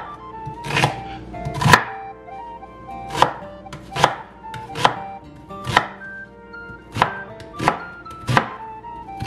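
Kitchen knife chopping a red onion on a wooden cutting board: a steady run of sharp knocks as the blade cuts through and strikes the board, a little more than one stroke a second.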